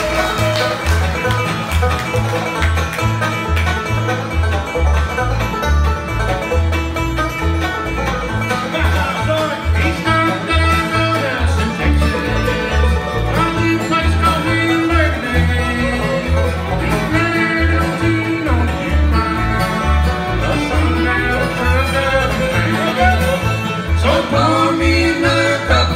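Live bluegrass band playing: banjo, acoustic guitar and fiddle over upright bass notes on a steady, even beat.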